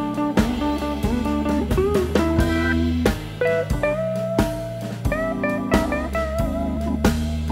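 Instrumental background music: a guitar playing bending melodic lines over bass and drums.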